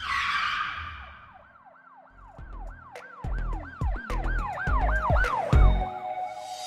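Channel logo intro sound effect: a whoosh hit at the start, then a rapidly repeating siren-like wail sweeping up and down about three times a second, over deep bass thumps that come in about two seconds in.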